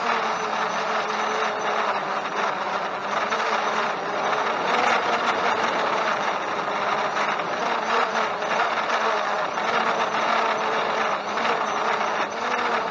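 Holystone HS700D quadcopter's motors and propellers whirring steadily, the hum wavering slightly in pitch.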